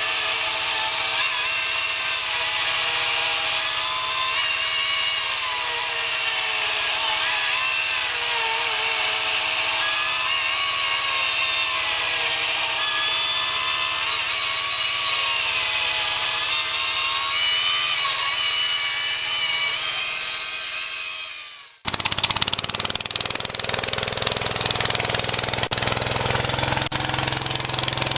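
A power tool's motor running continuously, its pitch wavering slightly as if under load. It fades out about three-quarters of the way through, followed by an abrupt change to a rougher, noisier machine sound.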